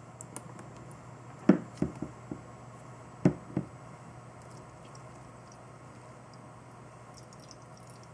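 A few sharp knocks and taps: four in quick succession about a second and a half in, then two more about a second later, over a low steady hum.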